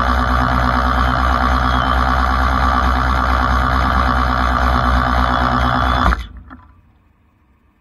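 Rollback tow truck's winch and hydraulics pulling a pickup up the bed: a loud, steady mechanical drone that cuts off suddenly about six seconds in as the winch stops.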